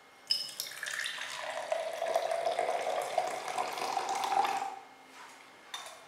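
Milk poured in a steady stream into a glass French press carafe for about four and a half seconds, then stopping suddenly. A single light click near the end as the lid is set on.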